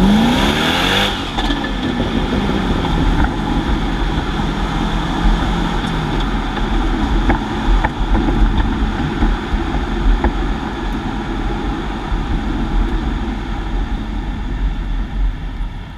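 Chevrolet C6 Corvette V8 heard from under the car between its exhaust tips: the engine revs up hard in the first second, its pitch falls as it lets off, then it settles into a steady low rumble while driving, fading near the end.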